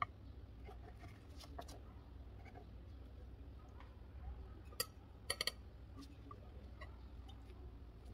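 Table knife cutting through a thin, soft vegetable pancake on parchment paper over a wooden board, with light scraping and a few sharp clicks, a quick cluster of them about five seconds in, over a steady low hum.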